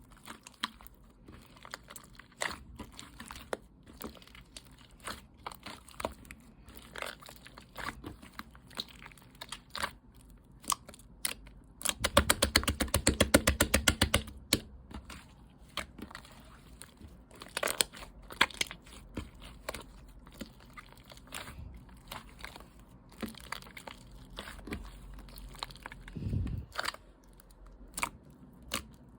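Mango yogurt slime being pressed and squished by hand, giving scattered sticky clicks and pops. A burst of fast clicking runs from about twelve to fourteen and a half seconds in.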